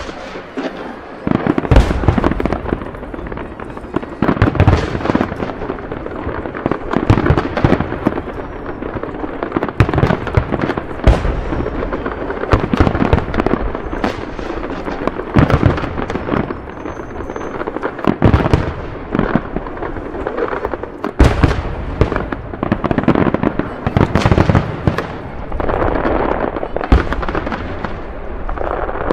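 Fireworks display: aerial shells bursting one after another, with heavy booms every few seconds over continuous crackling and popping from the stars.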